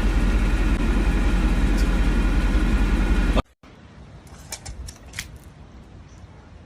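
Steady vehicle engine drone with a low rumble and a constant hum, cutting off suddenly about three and a half seconds in. After it come a few faint light clicks.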